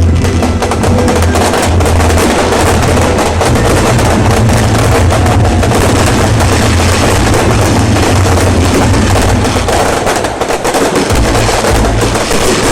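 Fireworks going off continuously: a dense, rapid crackle of many small bangs over a deep low rumble that fades about ten seconds in.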